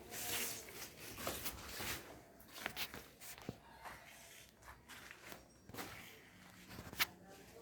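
Footsteps walking through a room, irregular scuffs and light clicks; a sharp click about seven seconds in is the loudest.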